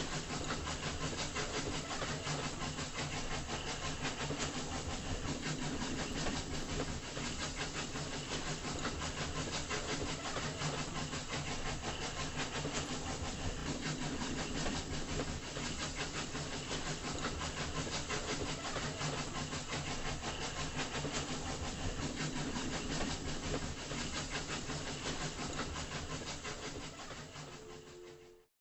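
A train running: a steady rumble and rapid rattle of railway carriages on the track, fading out near the end.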